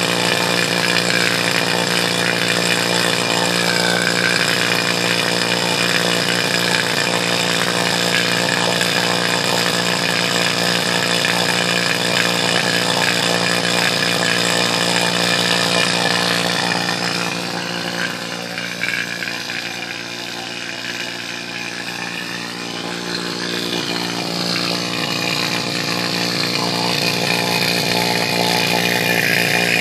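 Refrigeration vacuum pump running steadily with a constant hum, pulling a vacuum on an air conditioner's refrigerant lines. It turns a little quieter for a few seconds past the middle.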